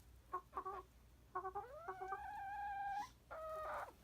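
Chickens clucking in a coop: a few short clucks, then one long call that rises in pitch and holds for about a second and a half, and another short call near the end.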